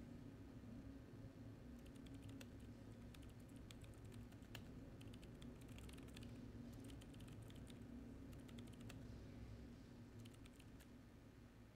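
Faint typing on a laptop keyboard: irregular runs of key clicks starting about two seconds in and stopping near the end, over a low steady hum.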